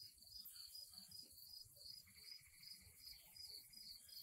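Near silence, with faint insects chirping in a steady, evenly pulsing high trill.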